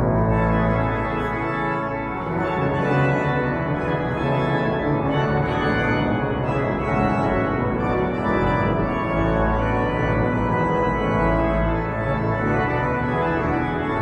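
St Pierre Cathedral's pipe organ playing full sustained chords over deep pedal bass notes.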